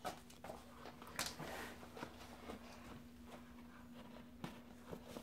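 Quiet room tone: a faint steady low hum with a few soft clicks and rustles.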